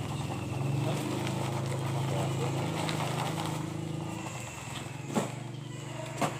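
A small engine runs steadily with a fast flutter and fades away about four seconds in. Two sharp knocks come near the end.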